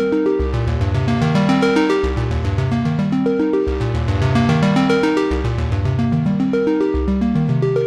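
Modal Cobalt 5S synthesizer playing a fast, evenly pulsing arpeggio over a low bass line that moves to a new note about once a second.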